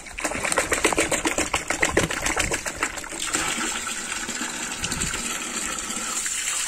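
Water splashing and sloshing for the first few seconds, then a steady stream of water poured from a jug into a plastic basin of fish. The water is being mixed in to acclimatise the fish to the new water before release.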